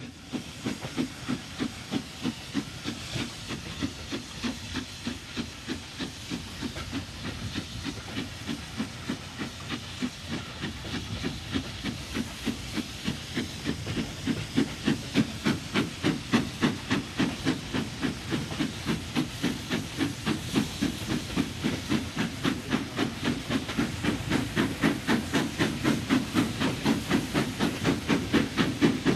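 Steam locomotive working under steam, its exhaust chuffing in an even beat over hissing steam. The beats quicken and grow louder as it picks up speed.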